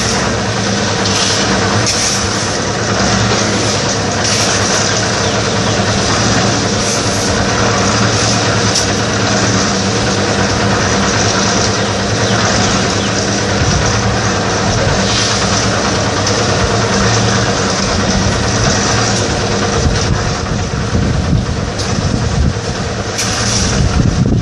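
Portable drum concrete mixer's engine running steadily, with occasional clatter over it.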